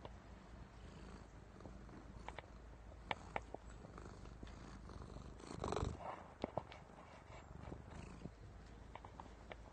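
Black-and-white domestic cat purring steadily right at the microphone. Scattered sharp clicks and a louder brushing noise just past halfway come from the cat rubbing against the phone.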